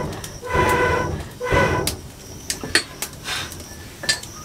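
An iron poker being worked in a clay wood stove's firebox: three metal scrapes that squeal, each about half a second long, then several sharp clicks and knocks of metal on metal.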